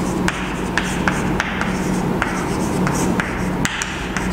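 Chalk writing on a chalkboard: scratchy strokes with several sharp taps as the letters are formed, over a steady low hum.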